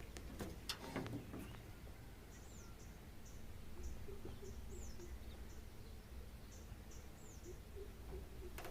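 Faint birdsong over low background noise: short high chirps and down-slurred notes repeated every half second or so. A few sharp clicks come in the first second and a half.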